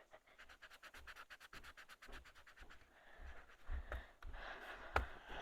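Quick back-and-forth colouring strokes scratching on paper, about nine a second at first, then heavier scribbling. A single sharp tap comes about five seconds in.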